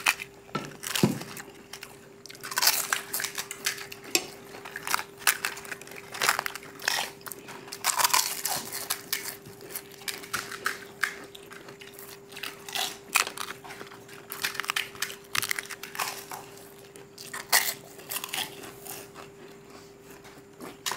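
Several people crunching and chewing crisp pani puri (golgappa) shells, irregular crisp cracks and bites coming thick and fast, with a faint steady hum underneath.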